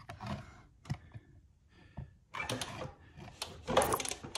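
Light scattered clicks and knocks, then a denser mechanical clatter from about two and a half seconds in, from a 1964 Honda Super Cub's kick-start and engine being turned over with the spark plug out to check for spark.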